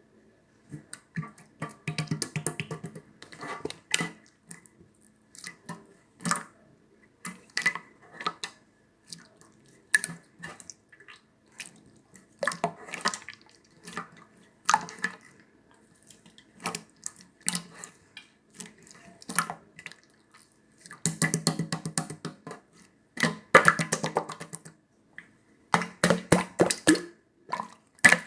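Clear, colourless slime being pressed, poked and stretched by hand, giving irregular wet clicks, pops and squelches in bursts with short pauses between them.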